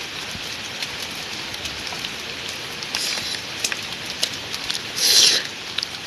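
Steady rain falling, with scattered sharp drop ticks; a short, louder rustling noise about five seconds in.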